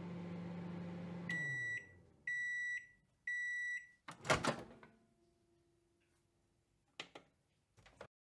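Microwave oven hum winding down as its timer runs out, followed by three long high beeps about a second apart that signal the end of cooking. The door then opens with a loud clatter, and two short clicks come near the end.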